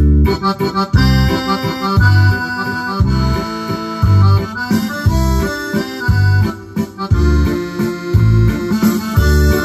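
Yamaha DGX670 digital piano playing a sampled accordion voice: a melody with chords over the keyboard's waltz accompaniment, its low bass notes coming about once a second.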